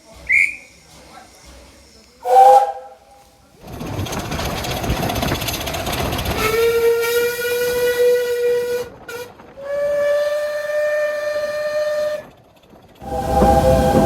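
Steam locomotive whistles. A short toot comes first. Then steam hisses loudly and two longer whistle blasts sound over it, the second a little higher in pitch. Near the end a different, chord-like chime whistle starts with the low rumble of a train under it.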